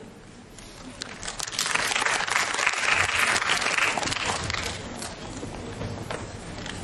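Audience applauding. The clapping swells soon after the start, is loudest in the middle, and dies down toward the end.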